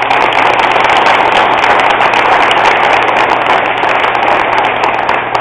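Crowd of people applauding, a dense patter of many hands clapping together, easing off slightly near the end.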